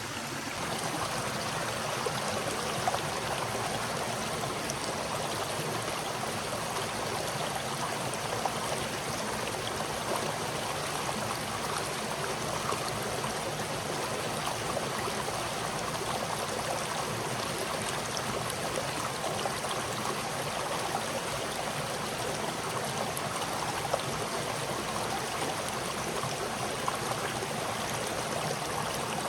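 Flowing stream: a steady babble of running water, with a few brief clicks.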